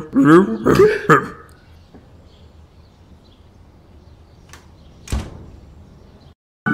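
A voice humming a few short sliding notes, then, after a pause over faint background, a small click and a single sharp thump of a door shutting.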